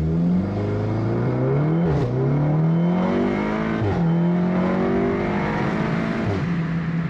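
2019 VW Golf R's turbocharged 2.0-litre four-cylinder under hard acceleration, heard from inside the cabin: engine pitch climbs, drops sharply at quick upshifts about two, four and six and a half seconds in, then climbs again.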